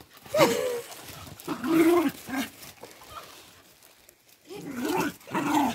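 Dogs barking and yipping as they play chase, a few short calls in the first couple of seconds, a lull, then more calls near the end.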